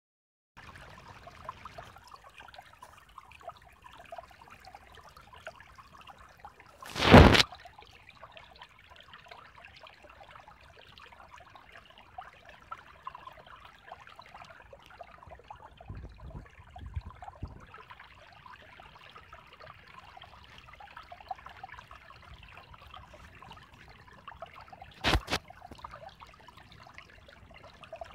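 Spring-fed woodland creek trickling and splashing steadily over a small rock ledge. Two sudden loud bumps break in, the louder about seven seconds in and a shorter one near the end.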